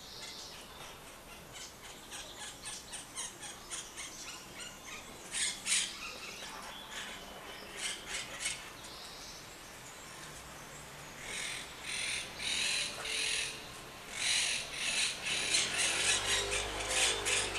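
Monk parakeets calling: series of short, harsh chattering notes, sparse at first and louder and faster in the second half.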